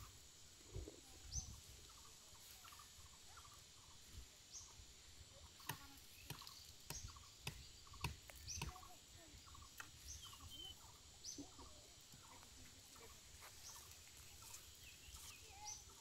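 Near silence: faint outdoor ambience with scattered short bird calls, a faint steady high whine, and a few soft clicks.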